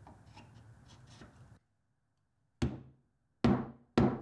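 Mallet striking the end of a drill bit set upright in a hole in hardwood: three sharp knocks, the first about two and a half seconds in and the last two close together. Faint handling rustle comes before them.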